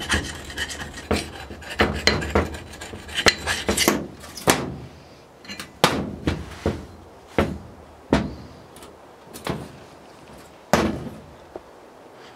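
Rusty steel axe head wetted with kerosene being scrubbed by hand to strip the rust: first quick, dense strokes of a wire brush, then slower single scraping strokes of a rubbing block, about one a second, thinning out toward the end.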